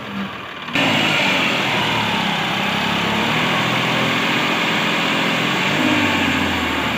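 New Holland 3230 tractor's diesel engine running hard, pulling a trolley loaded with mud through soft ground. It steps up sharply in loudness about a second in, then runs steadily.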